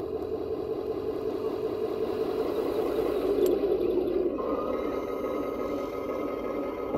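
Radio-controlled model Tiger tank driving toward the microphone through grass, its drive gearing and tracks making a steady whirring clatter that grows louder as it approaches. About four seconds in a steady whine joins as the turret traverses.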